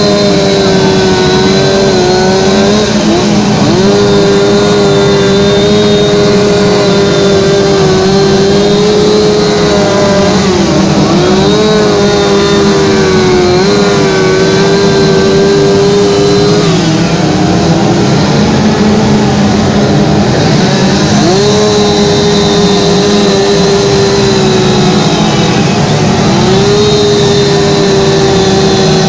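Chainsaws carving wood at full throttle, at least two running at once: the main saw holds a high steady pitch that sags several times as the chain bites into the wood, then picks back up.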